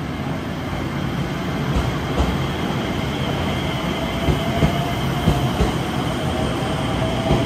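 JR West 227 series electric train gathering speed as it pulls along the platform. The motor whine creeps up in pitch, and the wheels thump over rail joints in quick pairs through the second half, the sound growing louder throughout.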